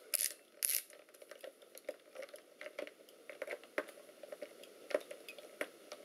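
Screwdriver turning the spring-loaded captive screws of an Alienware M14x laptop's bottom cover, giving a run of irregular small clicks. The clicking is the sign that each screw has backed out of its thread.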